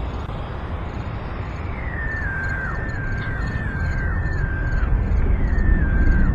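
Suspense film soundtrack: a low rumbling drone that slowly swells, joined about two seconds in by a high electronic tone repeating about every 0.7 seconds, each note stepping down in pitch.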